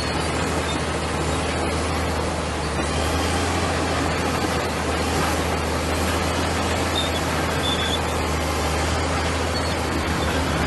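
Komatsu bulldozer's diesel engine running steadily under work, a constant low drone with a broad mechanical rush over it.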